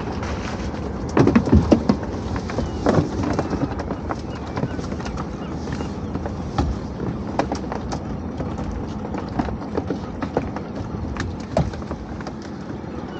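Irregular knocks, taps and clatter of fishing gear and catch being handled in a small open boat, with a dense burst of thuds about a second in and scattered taps after.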